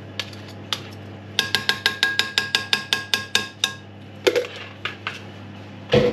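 A metal utensil clinking quickly, about eight light clinks a second for a couple of seconds, as it scrapes the last of the egg mixture from a plastic jug into a glass baking dish, with a faint glassy ring. Two duller knocks follow near the end.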